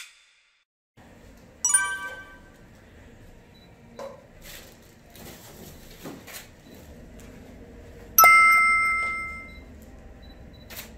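Two bright chime-like dings, the first about a second and a half in and a louder one near the end with a long ringing fade.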